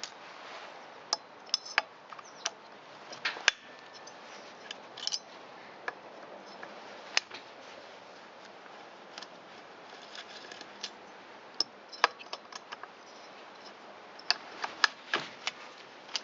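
Hand tools and small metal engine parts clicking and tapping in irregular, scattered sharp clicks, during disassembly of a two-stroke string trimmer engine for a piston ring replacement.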